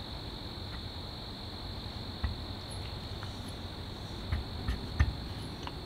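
A few faint clicks and taps of metal parts as a new wheel is slid onto the shaft of a Holset HX40 turbocharger, over a steady high-pitched whine.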